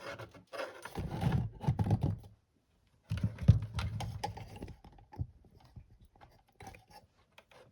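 Handling noise at a workbench: dull knocks, scraping and rustling from things being moved about, in two bursts with a brief pause between, then scattered light clicks.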